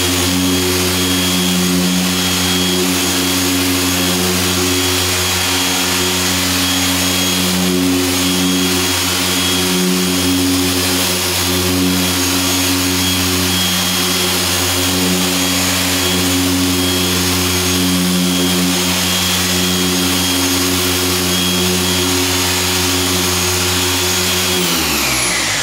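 Griot's Garage 6-inch dual-action polisher running with a steady motor hum while it buffs polish into car paint. It is switched off near the end, and its pitch falls as the motor winds down.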